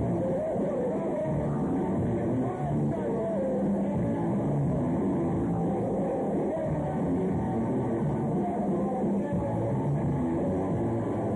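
Rock-style music with a singing voice, continuous and steady; the sound is muffled, with little treble.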